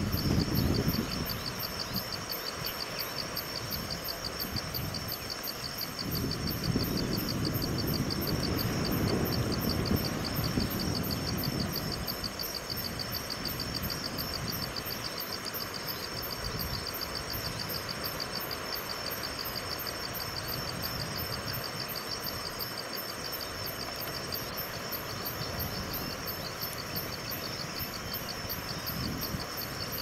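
Insects chirping in a steady, evenly spaced pulse, a few pulses a second, over a low rumble that swells for several seconds about six seconds in.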